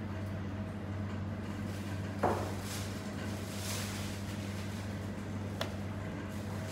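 Steady low hum of commercial kitchen equipment, with a single sharp knock about two seconds in and a light click later.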